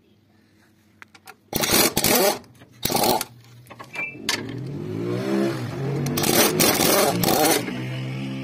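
Mercedes-Benz engine starting up and running: loud noisy bursts after about a second and a half, then an engine note that rises and falls, more loud bursts about six seconds in, and a steady idle near the end.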